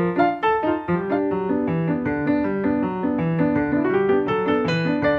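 Piano music playing as a background track: a steady, even run of notes, several sounding together, with no break.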